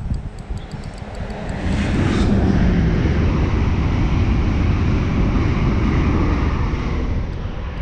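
An aircraft passing overhead: a steady engine drone that swells about two seconds in and fades near the end.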